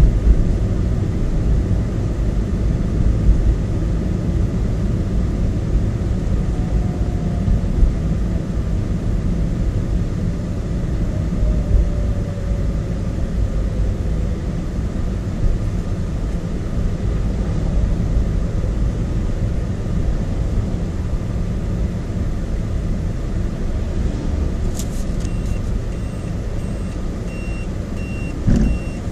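Steady engine and road rumble of a car driving, heard from inside the cabin. A regular high ticking starts near the end.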